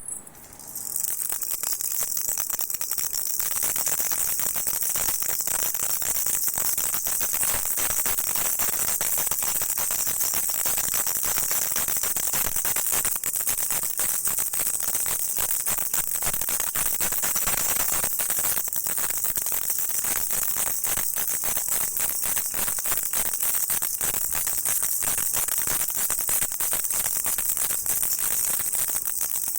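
A rattle shaken continuously: a dense, steady clatter of rapid clicks with a constant high hiss above it, starting about a second in.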